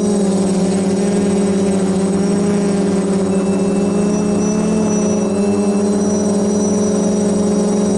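DJI F450 quadcopter's brushless motors and propellers humming steadily in flight, heard through the onboard camera's microphone.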